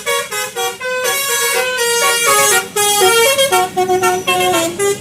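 A bus's telolet, the multi-tone musical air horn of Indonesian buses, playing a quick tune of short notes that step up and down, with longer held notes near the end.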